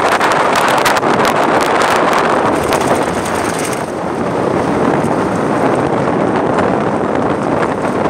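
Wind rushing over the microphone with the running noise of a moving road vehicle. The wind crackles and buffets hardest in the first few seconds and eases a little about four seconds in.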